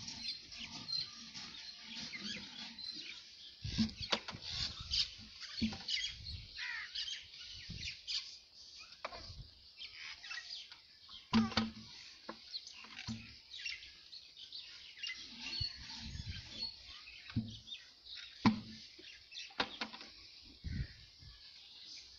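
Small birds chirping and twittering throughout, with scattered short low thumps and knocks, the loudest a little past the middle and near the end.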